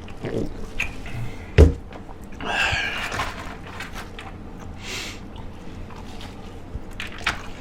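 Eating and handling food close to a shirt-clipped microphone: a single thunk about a second and a half in, then a few short, soft rustling or breathy noises and a light click near the end.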